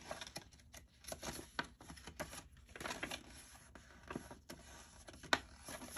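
Paper rustling and crinkling as a folded instruction manual is handled and unfolded, in quick irregular crackles with a sharper one about five seconds in.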